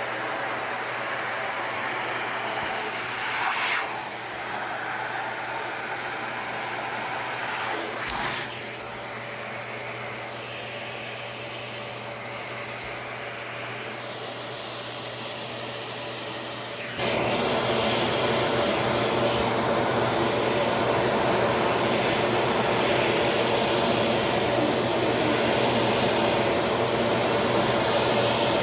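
Steady low machine noise with two short knocks, then a vacuum cleaner comes on loud about two-thirds of the way through and runs with a steady whir and hum.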